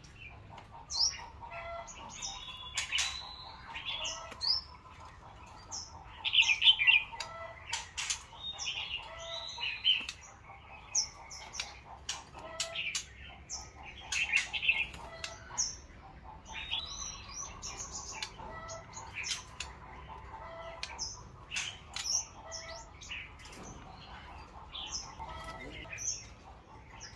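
Caged white-rumped shamas calling: short high chirps and whistles again and again, mixed with sharp clicks and wing flutters from birds moving about in their cages.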